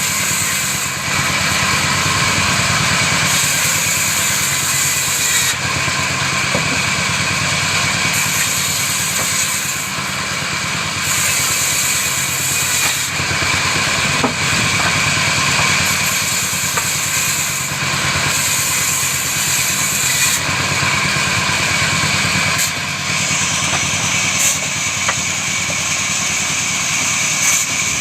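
Woodworking machine running steadily. A high hiss on top of it comes and goes in stretches of a few seconds.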